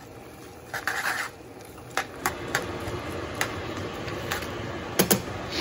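Metal tongs clicking and scraping against a sauté pan while tossing linguine into shrimp scampi sauce. A short scrape about a second in, then scattered sharp clicks, with a quick double click near the end.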